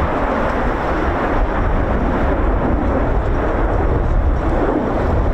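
Jet noise from a Eurofighter Typhoon's twin Eurojet EJ200 engines as the fighter banks through its display, a loud, steady, deep rumble.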